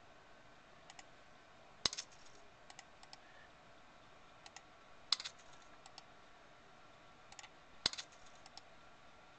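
Clicks from working a computer's mouse and keys: three louder sharp clicks about three seconds apart, with fainter ticks between them, as files are picked from a right-click menu and moved to the trash.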